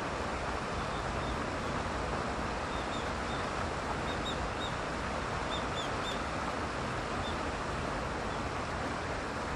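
Steady rushing background noise, with faint, brief high bird chirps, several in quick pairs, scattered through the middle.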